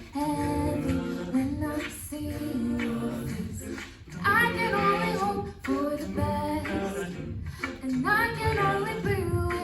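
An a cappella group singing in harmony, with held backing chords under a moving melody line.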